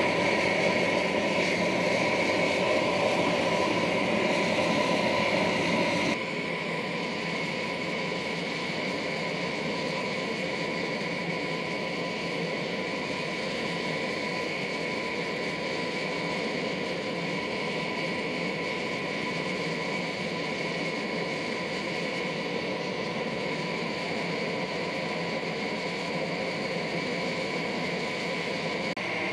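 Gas forge burner running with a steady rush and a faint high whistle. It drops in level about six seconds in.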